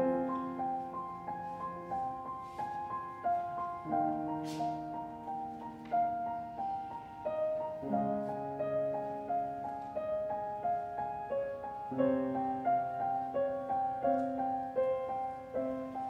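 Grand piano playing alone, an interlude between sung verses: a repeating figure of single notes over low chords that change about every four seconds.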